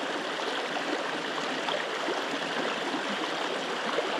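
Small trout creek running over a rocky riffle: a steady, even rush of water.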